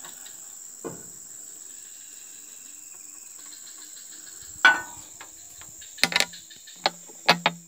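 Sharp metallic clicks and taps as a small wrench loosens the nut on the throttle linkage ball joint at a Komatsu PC200-7 excavator's governor motor: one a little before a second in, a loud one about halfway through, and several near the end. Insects chirr steadily and high-pitched in the background.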